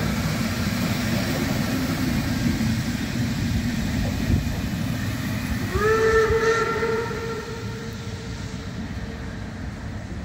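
Passenger coaches of a steam-hauled special train rolling past over the rails with a steady rumble of wheels. About six seconds in, the steam locomotive's whistle sounds once for about a second and a half, and then the rolling fades away.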